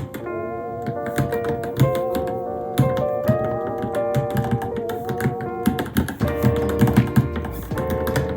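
Fast, irregular typing clicks from a Varmilo Minilo mechanical keyboard, under background music with a melody of held notes.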